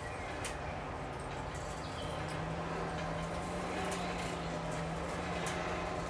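Forge blower running, a steady rush of air into the coal fire with a low hum that steadies about two seconds in, and a few faint clicks.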